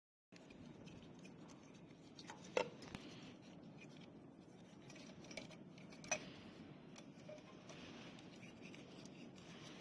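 Faint room tone with a few light clicks, the sharpest about two and a half seconds in and again about six seconds in.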